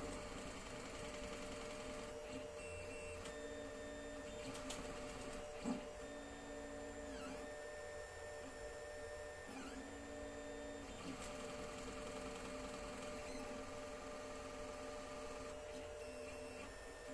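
Alfawise U10 3D printer running a print: its stepper motors whine in pitched tones that switch pitch with each move, some sweeping down and back up, over a steady hum. One short sharp click sounds about six seconds in.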